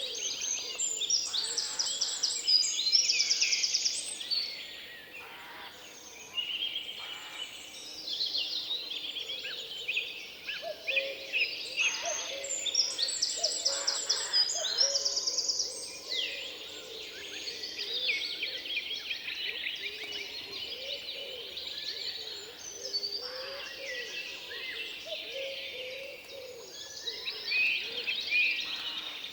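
Several songbirds singing over one another, with quick chirps and fast high trills that come back every few seconds, and a few lower short calls underneath.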